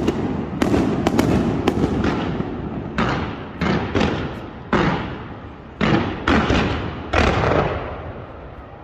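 Fireworks display going off: a rapid cluster of bangs at first, then single bangs about every half second, dying away near the end.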